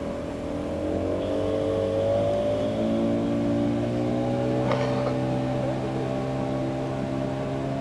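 Boat engine running under way, its pitch rising slightly as it picks up speed in the first two seconds, then holding steady.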